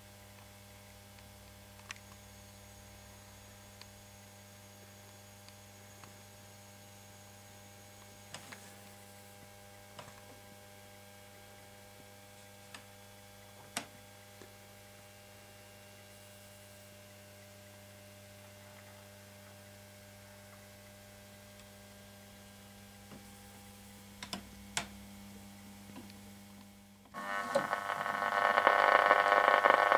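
Crosley 59 tube radio giving a faint steady mains hum, with a few faint clicks. About 27 seconds in, the radio's sound comes up suddenly loud: static and broadcast music.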